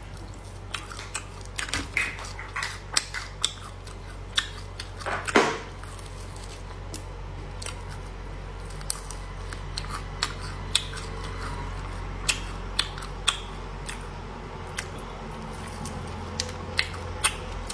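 Close-up eating sounds of air-dried chicken neck being gnawed: a string of sharp crunches and clicks as the dry meat and small bones are bitten and torn. They come thickly in the first six seconds, loudest about five seconds in, and more sparsely after, over a steady low hum.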